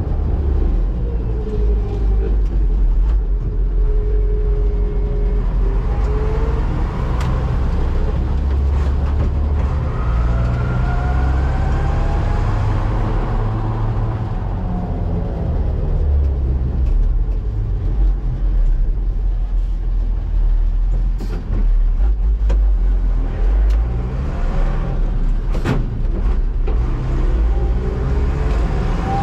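Mercedes-Benz Unimog U 1000's six-cylinder diesel engine heard from inside the cab while driving, a heavy low rumble whose pitch rises and falls as it pulls and eases off. A few sharp knocks sound in the second half.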